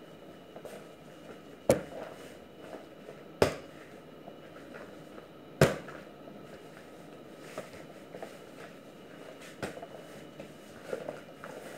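Pizza dough being kneaded by hand on a plastic-covered counter: three loud slaps as the dough is slammed down, about two seconds apart, then a softer thump and light patting and squishing of the dough.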